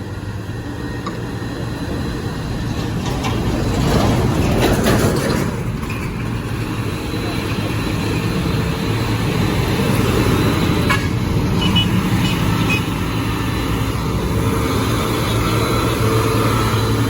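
Diesel engines of heavy tanker trucks and a bus labouring up a steep hill. There is a steady low drone that swells loudest about four to five seconds in as a vehicle passes close, then carries on steadily.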